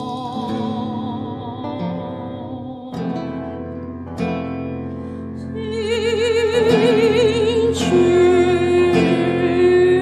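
Mixed Chinese and Western chamber ensemble playing live: plucked-string notes under slow, wavering bowed or sung melody lines, the music swelling louder about six seconds in.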